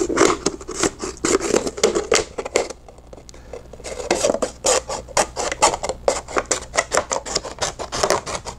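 Scissors cutting through a plastic soda bottle: a rapid run of short snips, pausing briefly about three seconds in.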